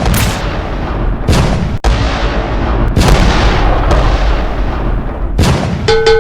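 Dense battle sound effects of naval guns and explosions, loud sharp blasts following one another so closely that their rumbling tails overlap throughout. Near the end a short steady tone sounds over the blasts.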